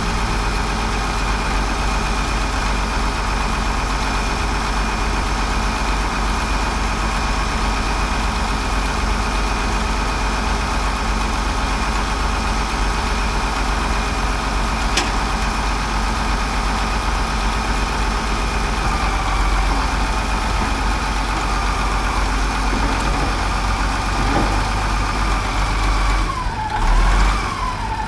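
Caterpillar D7F dozer's diesel engine running steadily, with a single sharp click about halfway through and a brief dip and rise in engine speed near the end.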